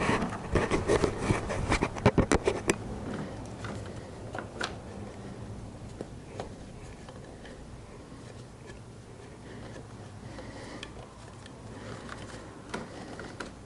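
Hands working on motorcycle parts: a quick run of sharp clicks and taps in the first three seconds, then faint handling noise with a few scattered ticks.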